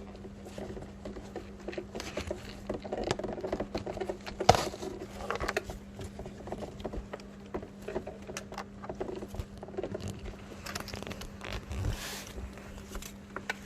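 White foam padding being peeled and pulled off a plastic car door trim panel by hand: irregular crackling and scraping with scattered small clicks, one sharper click about four and a half seconds in. A steady low hum runs underneath.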